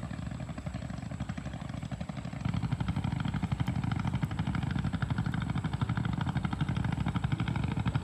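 Single-cylinder diesel 'shallow machine' engines of two fishing boats running, a fast, even chugging that gets louder about two and a half seconds in.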